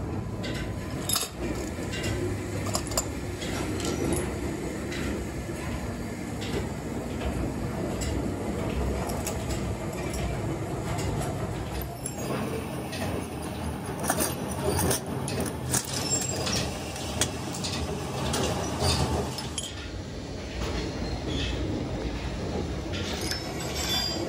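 Workshop noise in a machine-building factory: a constant low background with frequent metal clinks and knocks scattered throughout.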